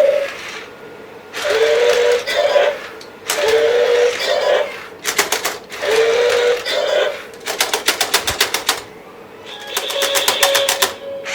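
Electronic sound effects from a remote-controlled robot raptor toy: short growling bursts with a dipping tone, alternating with rapid rattling click trains of about ten clicks a second.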